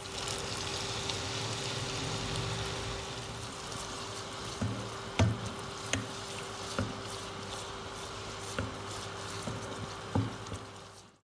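Onion, cashew and yoghurt gravy paste sizzling in a non-stick frying pan while a wooden spoon stirs it, with a steady hum underneath. From about four seconds in the spoon knocks against the pan half a dozen times, loudest about five seconds in and again near the end.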